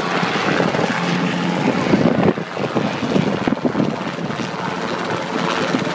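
Small piston-engined helicopter hovering low, its rotor beating steadily over a constant engine drone.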